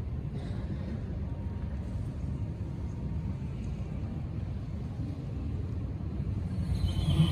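Steady low rumble of room noise in a large hall, with no speech. Near the end, music begins to come in.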